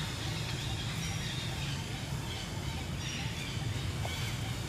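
Steady outdoor background noise with a low hum underneath and a few short, faint high chirps.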